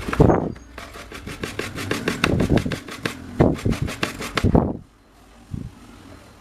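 Hand work scraping or rubbing on a part, with a fast, even run of sharp clicks and several louder rasping strokes; it stops short near the end.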